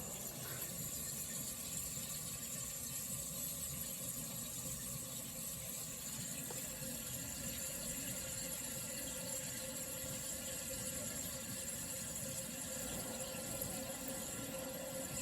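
Refrigerant hissing and trickling through the sealed system of a vintage Sears Coldspot 28 dehumidifier just after its compressor has been shut off, as the pressures equalise. A steady, faint sound.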